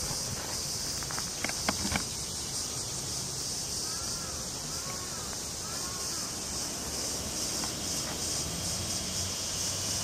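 A steady, high-pitched chorus of summer cicadas. A few sharp clicks come near the start, and three short arching chirps come around the middle.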